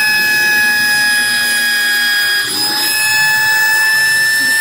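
CNC router's motors whining steadily in a high pitch with several overtones, dipping briefly and shifting pitch slightly about halfway through.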